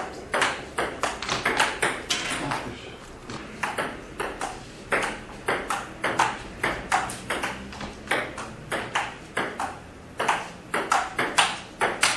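Table tennis rally: the ball clicking off the paddles and the table, two to three sharp knocks a second, with a few brief pauses between exchanges.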